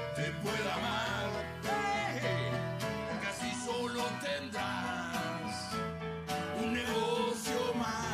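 Live acoustic band playing a song: male voices singing into microphones over a strummed acoustic guitar and piano.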